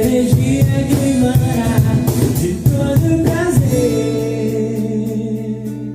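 Rehearsal of a Brazilian bar song: a singer with a small band over a steady beat. About four seconds in the singing stops and a final chord is held and begins to fade.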